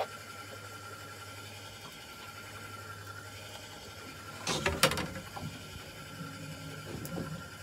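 Fishing reel being wound in, a faint steady mechanical hum, with a short clatter of knocks from the rod and reel handling about four and a half seconds in and a single click near the end.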